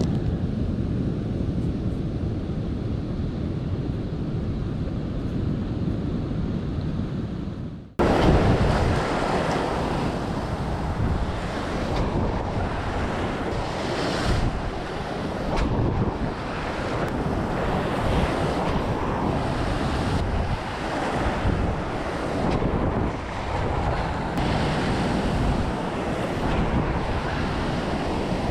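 Low wind rumble on the microphone for about the first eight seconds. Then, after a sudden break, rough surf breaks and washes over rocks, with wind, surging and easing.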